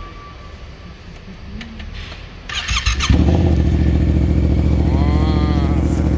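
Motorcycle engine being started: a short crank about two and a half seconds in, then the engine catches and settles into a loud, steady idle.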